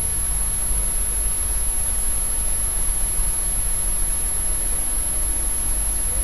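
Steady background hiss with a low hum and a constant faint high-pitched whine: the recording's noise floor, with no voice.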